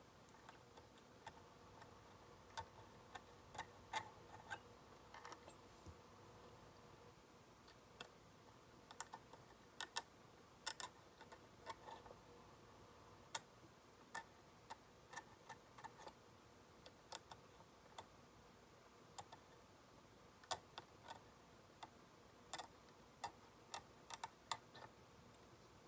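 Metal hand scaler tip clicking against the plastic teeth of a dental typodont while scaling the lower front teeth: small sharp clicks at an uneven pace, a few a second at the busiest, over a faint steady hum.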